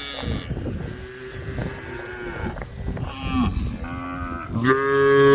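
Several cows mooing, their calls overlapping, with the loudest and longest moo starting near the end.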